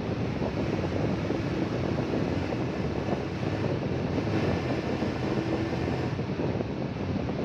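Rainstorm: heavy rain falling steadily with wind, an even, unbroken wash of noise.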